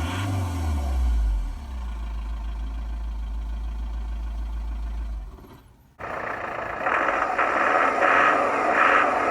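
Custom sound clips played through a Tesla Model 3's Boombox speaker. A low wavering hum settles into a steady low drone and fades away about five seconds in. About six seconds in, a new clip starts abruptly: a pulsing sound repeating about twice a second.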